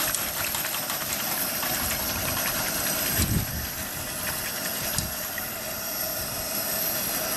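Steady hiss of a Coleman liquid-fuel camp stove burner heating a saucepan. Over it come light ticks and scrapes of a wire whisk against the stainless steel pot, and a couple of soft knocks.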